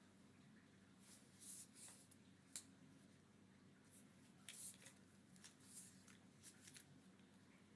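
Typing on a gasket-mounted mechanical keyboard with Cherry MX Black Hyperglide linear switches, an aluminium plate, no foam dampening and GMK keycaps. The keystrokes are faint, irregular clicks that come in short runs.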